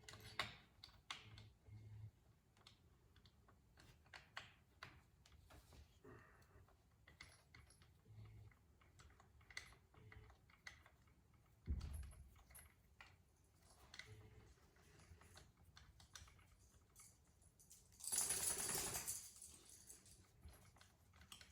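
Scattered light clicks and taps of hand tools and small metal parts being handled on a workbench during chainsaw work, with a low thump about halfway through and a louder rushing scrape lasting about a second and a half near the end.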